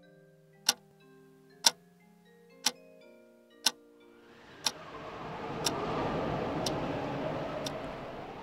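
A clock ticking once a second, with soft chime-like melody notes under it for the first few seconds. About four seconds in, a whooshing swell of noise rises over the ticking, peaks, and slowly fades.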